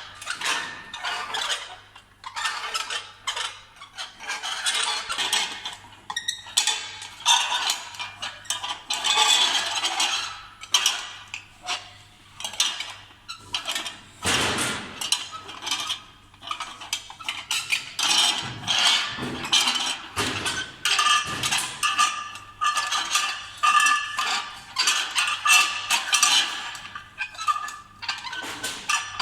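CNC channel-letter bending machine working metal strip: a busy, irregular run of sharp metallic clicks, clanks and clinks over a steady low hum, with some brief ringing tones in the second half.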